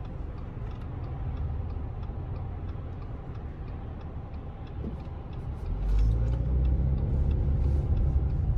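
Car cabin noise while driving: a steady low rumble of engine and tyres that grows louder about six seconds in.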